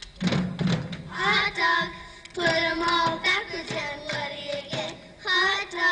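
A group of children singing together over backing music played through a loudspeaker.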